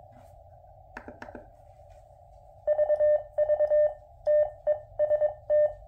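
Receiver hiss from a QRP Labs QMX transceiver through a powered speaker, with a couple of clicks about a second in. From about two and a half seconds in, the CW sidetone keys Morse elements, each with a low thump under the tone. The thump comes from the QMX's known keying-thump problem on transmit, mild here on 40 metres.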